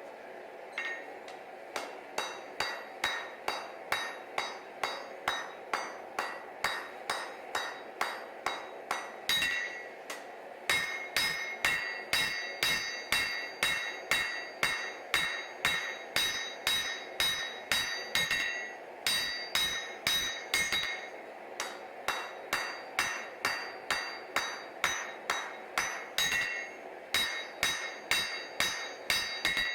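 Hand hammer striking hot damascus steel on an anvil while the tang of a chef knife is forged, about two blows a second with a bright metallic ring after each. The run breaks off briefly a few times.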